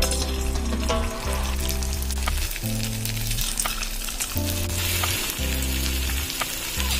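Wheat-flour dough balls frying in hot coconut oil in an aluminium kadai, with steady sizzling and bubbling. The sizzle grows louder about four and a half seconds in as more balls are added. Background music with a slow bass line plays underneath.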